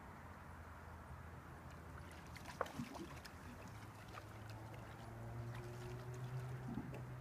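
A steady low engine drone, growing louder about four seconds in, with one sharp click a little before three seconds.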